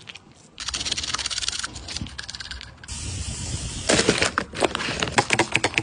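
Quick rustling and crackling of plastic and skincare items being handled, with a steady hiss for about a second in the middle; the crackling is loudest and densest in the second half.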